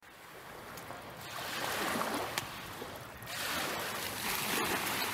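Water rushing and washing along the hull of a sailboat under sail, fading in at the start and then rising and falling in surges, with one sharp tick about two and a half seconds in.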